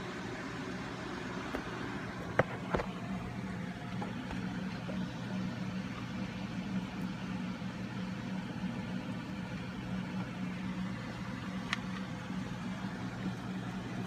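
A steady low mechanical hum with a few light clicks: two close together about two and a half seconds in and one near the end.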